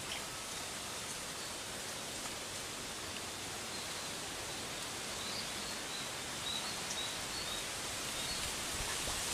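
Steady outdoor background hiss, with a string of faint, short, high chirps about halfway through.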